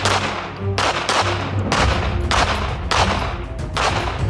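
Mossberg MC2C 9mm pistol firing a string of about seven shots, roughly half a second to a second apart, over background music.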